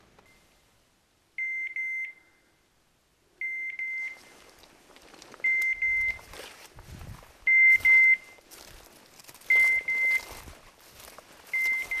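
Electronic beeper on a hunting dog's collar sounding short high double beeps, about one pair every two seconds, six times. Softer rustling and footfalls come in between.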